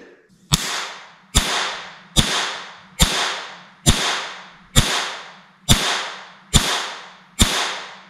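350,000-volt static discharge arcing across a test rig, cracking sharply about nine times at an even pace a little under a second apart. Each crack trails off in a short hiss, over a steady low hum.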